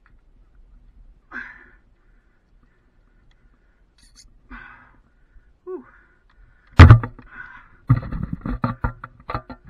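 Faint breaths from the lineman, then a loud knock about seven seconds in and a fast, irregular run of knocks and rattles as he and his gear shift against the wooden pole.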